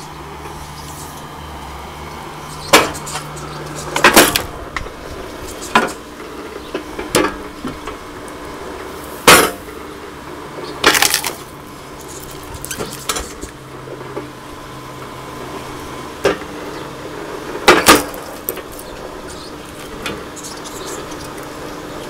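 Firewood processing machinery running with a steady hum, broken by about ten sharp, irregular knocks and clatters of wood and metal, some in quick pairs, one every one to three seconds.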